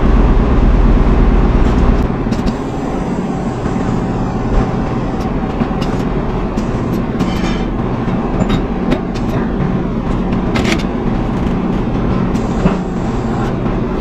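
Steady low mechanical hum of tyre-shop work, with scattered metallic clanks and clicks, strongest in the first couple of seconds.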